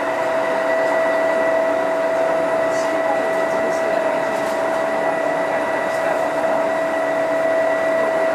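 Kintetsu 2430 series electric train running at a steady speed, heard from inside the car: a constant whine from the traction motors and gears over steady rolling noise.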